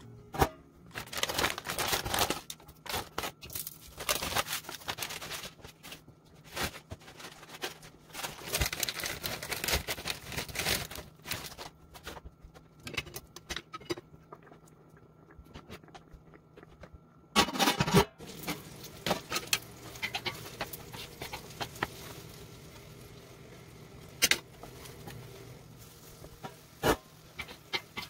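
Broth boiling in a stainless steel pot while a wooden spoon stirs it, with irregular sloshing, scraping and knocks against the pot, then rice noodles being stirred in. One loud clatter comes a little after halfway, followed by a few sharp clicks.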